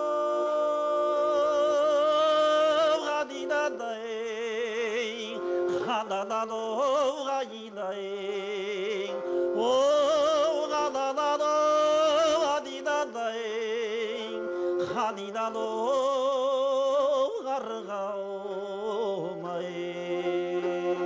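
Kazakh folk music on the kobyz, the two-string bowed fiddle: long held notes with a wide vibrato, moving to a new pitch every second or two.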